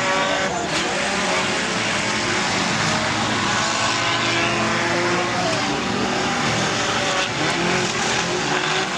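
Several mini stock race cars running hard around the track, their engines rising and falling in pitch as they pass, with a couple of brief knocks.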